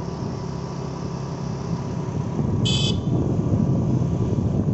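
Steady engine and road noise of a moving two-wheeler, heard from the rider's seat, getting a little louder after a brief high-pitched horn beep about two and a half seconds in.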